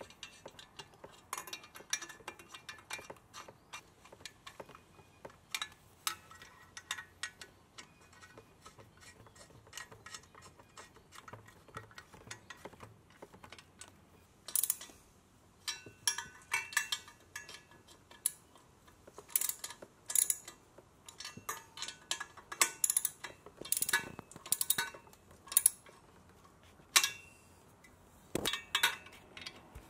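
Hand socket ratchet clicking in short runs as the exhaust header flange bolts are tightened down at the cylinder head, with light metal clinks of the tool against the pipes. The clicking is sparse at first and comes in denser, louder runs from about halfway on.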